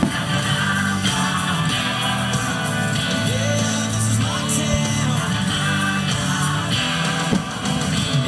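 Music: a rock-style song with guitar and singing, playing steadily.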